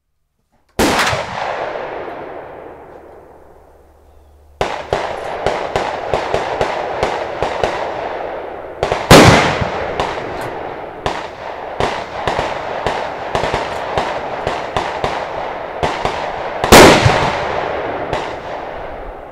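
Gunfire on an outdoor rifle range. Three loud single shots, one near the start, one about halfway and one near the end, each with a long rolling echo. Between them a quick string of quieter shots comes about two or three a second.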